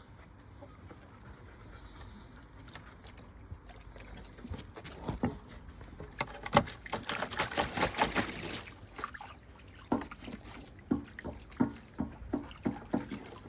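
A dog lapping water: a run of quick, wet laps that is thickest a little past the middle, then slower, spaced laps toward the end.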